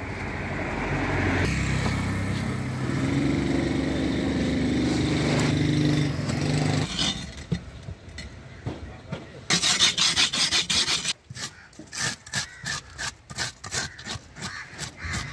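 A steady low hum for the first several seconds. Then a long fish knife is sharpened on a whetstone in quick back-and-forth strokes. After that the blade is scraped along the side of a large fish to strip its scales, in strokes about three a second.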